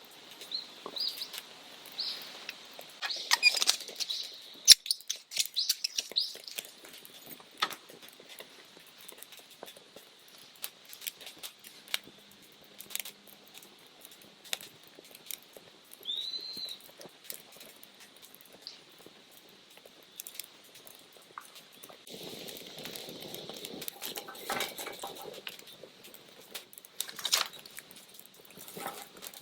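Small campfire of dry cedar needles and twigs crackling and popping irregularly as it catches. A bird chirps now and then.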